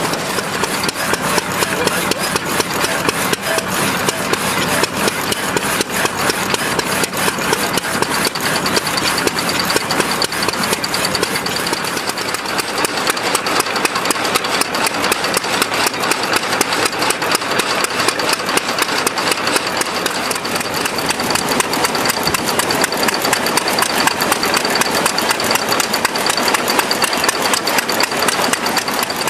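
A small engine running steadily with rapid, even firing strokes; a thin high whine joins about a quarter of the way in.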